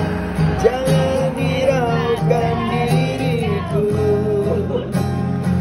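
Acoustic guitar strummed in a steady rhythm, with a wordless sung melody wavering and gliding above it.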